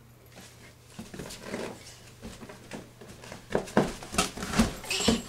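Irregular soft thumps and patter of a toddler moving and bouncing on the vinyl floor of an inflatable bounce house, getting louder about three and a half seconds in.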